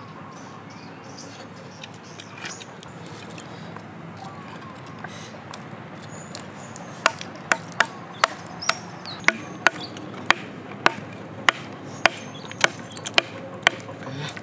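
A flat piece of wood chopping down on cone-shaped sea snail shells resting on a wooden plank, cracking them. Sharp wooden knocks about twice a second begin halfway through; before that there is only faint background.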